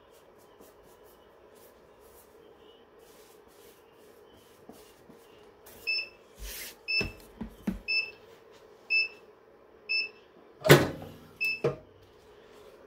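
Swing-away heat press timer beeping about once a second to signal that the pressing time is up, then a loud clunk near the end as the handle is pulled and the heated upper platen releases and starts to lift.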